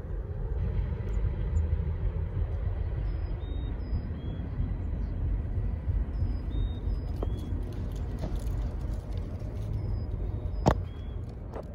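Steady low rumble of a passing freight train, with a few short high chirps and one sharp click near the end.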